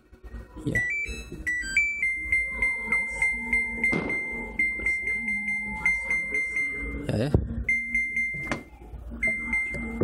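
Samsung WA95VP washing machine control board's buzzer beeping as its buttons are pressed: a few short beeps at stepping pitches, then long runs of short high beeps, about four a second, with a few knocks from handling the board. The board is responding to its buttons again after a blown fuse resistor was replaced.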